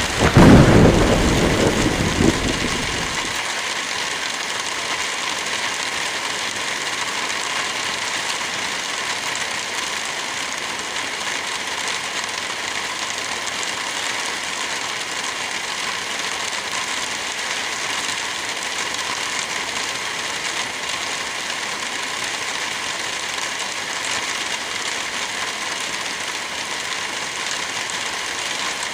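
Steady heavy rain, with a clap of thunder at the start that rumbles low and dies away within about three seconds.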